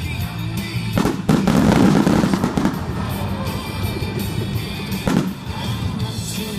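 Aerial firework shells bursting: a sharp bang about a second in, followed by more than a second of dense crackling, and another bang about five seconds in.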